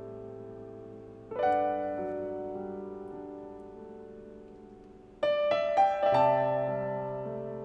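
Background piano music: a chord struck about a second and a half in, then a quick run of notes and chords around five to six seconds in, each left to ring and fade.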